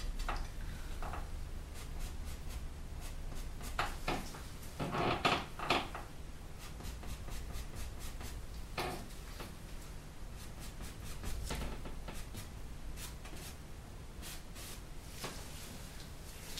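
Quiet handling sounds of oil painting: a few short scrapes and scattered small clicks as a brush works paint on the palette and canvas, over a low steady hum.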